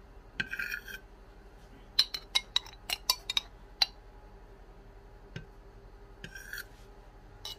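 A metal spoon clinking against crockery while sauce is spooned onto a plate: a quick run of about eight sharp clinks a couple of seconds in, with brief scraping sounds shortly before and again near the end.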